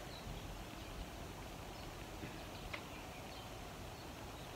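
Faint outdoor background noise with a steady low rumble, and a few faint, short, high bird chirps.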